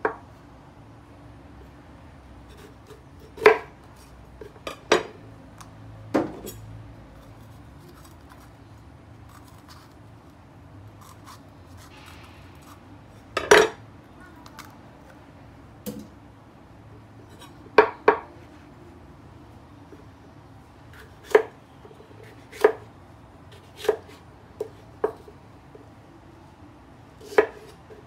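Chef's knife slicing a small sweet pepper on a wooden cutting board: sharp single knocks of the blade hitting the board, about fifteen at irregular intervals, with quiet pauses between.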